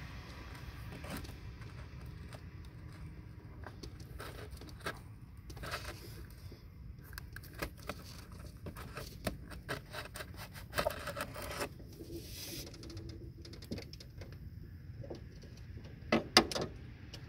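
Hand wire stripper being worked on a thin automotive wire: scattered small clicks and scrapes of the jaws and handles closing and the insulation pulling off, with two louder sharp clicks near the end.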